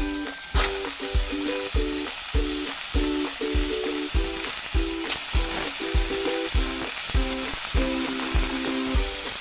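Pork sizzling as it fries in a pan in its own fat, with no oil added, a steady hiss. Background music with a steady beat plays over it.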